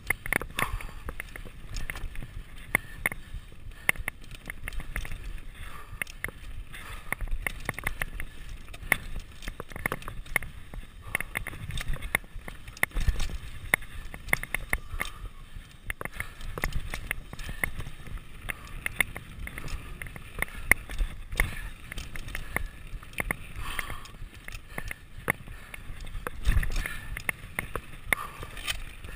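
Mountain bike descending a rough dirt trail at speed: a constant clatter and rattle of the bike over bumps, with tyre and wind rumble, and a couple of heavier thumps from bigger bumps.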